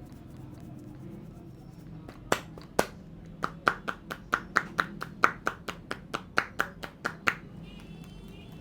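Barber's hands striking the head in a quick percussive massage, about twenty sharp slaps at three to four a second, starting about two seconds in and stopping shortly before the end.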